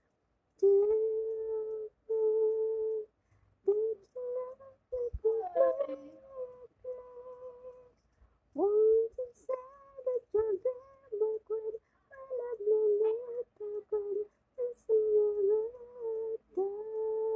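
A woman humming a tune without accompaniment, in held notes broken by short pauses.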